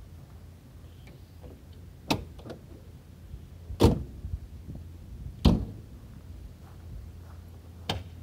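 Door latch and door clunks on a 1987 Chevy S10 custom truck: four sharp knocks about two seconds apart, the loudest about four seconds in, over a low steady hum.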